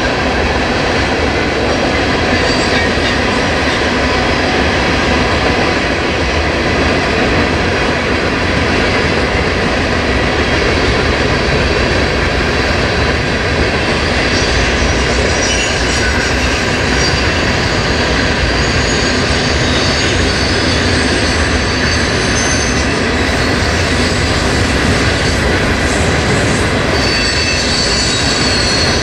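Freight train cars rolling past on steel rails: a steady, loud rolling noise with high-pitched wheel squeal held throughout.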